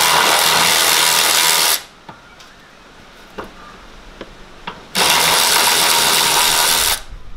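Cordless power driver spinning a Torx bit on a long extension to undo an airbox bolt. It runs loudly and stops abruptly under two seconds in, then there are a few light clicks, and it runs again for about two seconds near the end.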